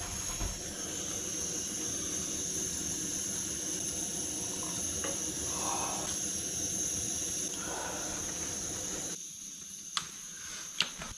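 Steady hiss of rain falling, which drops off suddenly about nine seconds in; two sharp clicks follow near the end.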